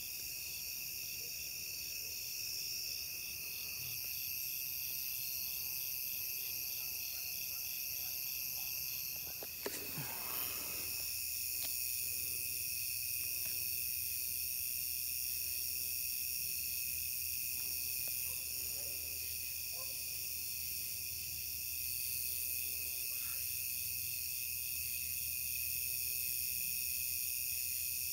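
Steady night chorus of crickets and other insects, with a rapid pulsing rhythm. About ten seconds in, a brief sharper sound cuts through it.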